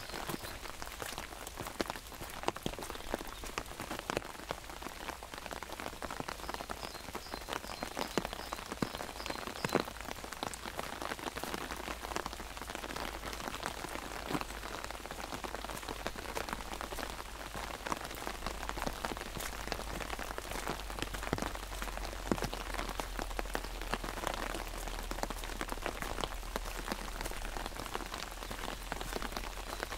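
Steady rain falling on an umbrella, with many sharp individual drops tapping close by over an even hiss of rain.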